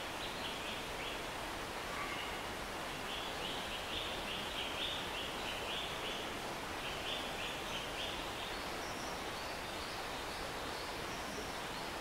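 Steady rush of a rainforest stream, with a bird calling over it in several quick runs of short, high notes, and fainter, higher notes near the end.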